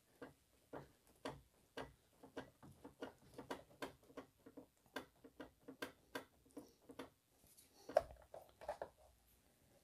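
Faint, irregular clicks and creaks, roughly two a second, from the plastic connector of the BMW E46's lower radiator hose being wiggled back and forth to work it off the radiator outlet, with a few louder clicks near the end.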